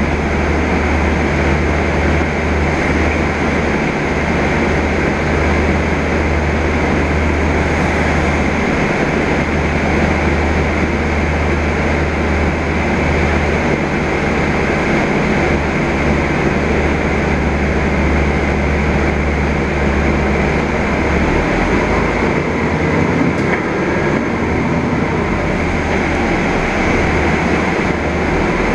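Cabin noise of a Mercedes-Benz Conecto G articulated city bus under way: a steady low engine hum under a rumble of road and body noise. The low hum shifts in pitch and level several times.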